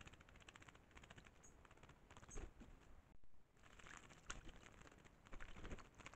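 Troupials bathing in a shallow pool: faint bouts of quick splashing and wing-fluttering in the water, several times over, the longest near the end.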